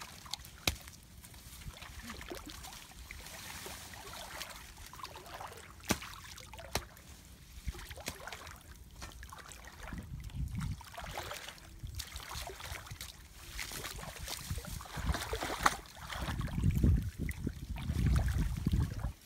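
Outdoor wind noise on the microphone with rustling and a few sharp clicks; the wind buffets louder in gusts over the last few seconds.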